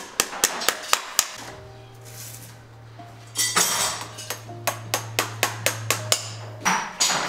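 Farrier's hammer tapping nails through a steel horseshoe into a horse's hoof: quick, sharp metallic taps, a few at first, then a faster run from about halfway, over background music.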